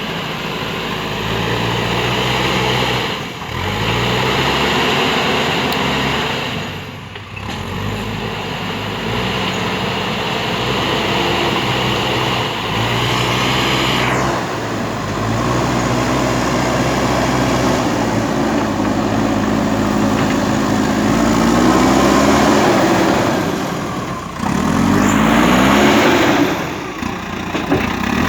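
JCB 3DX backhoe loader's diesel engine running, its revs rising and falling again and again as the machine works, with a few brief drops in level.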